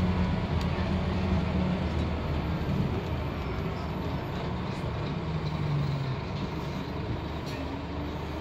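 Scania K230UB single-deck bus heard from inside the saloon, its rear-mounted five-cylinder diesel engine and driveline running as it travels. The engine note drops and the sound grows quieter through the second half as the bus slows.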